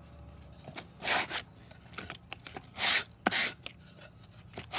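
A few separate short scraping rubs of sandpaper on plywood, irregularly spaced, with a few small clicks from handling the wood.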